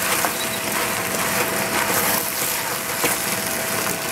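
Vegetables sizzling in a stainless steel pot as a wooden spoon stirs them, with a few knocks of the spoon against the pot.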